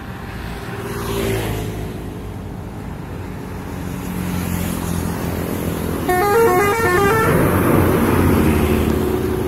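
Bus telolet horn playing a quick run of short, stepped musical notes for about a second, some six seconds in, over the steady rumble of a passing bus engine; a louder rushing noise follows as the vehicle goes by.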